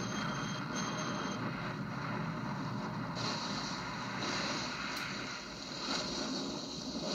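Film sound effects of a large ship at sea: a steady rush of engine and water noise, with two short high tones near the start, heard through a television speaker.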